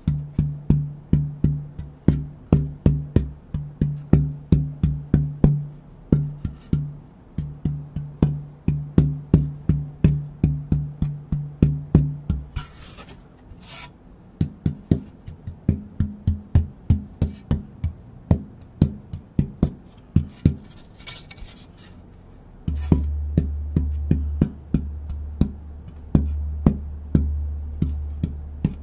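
German spruce guitar soundboard blank being tap-tested by hand: a steady run of taps, about two to three a second, each ringing with a clear, bell-like tone. The ringing note shifts a little past midway and drops to a deep low ring near the end as the board is tapped at different spots, one piece of wood giving several notes.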